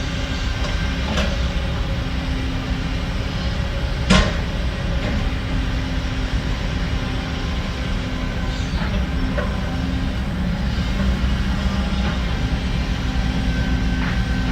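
Heavy diesel construction machinery running steadily with a low rumble, broken by a few sharp metallic clanks, the loudest about four seconds in.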